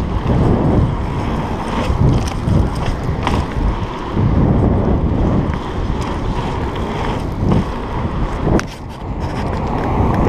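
Wind buffeting an action camera's microphone on a mountain bike rolling along a paved road, with tyre rumble and a few sharp clicks and rattles from the bike.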